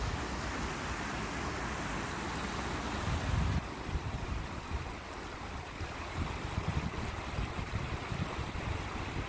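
Shallow river rushing over a stony bed: a steady hiss of running water. Wind buffets the microphone in low gusts, strongest about three seconds in.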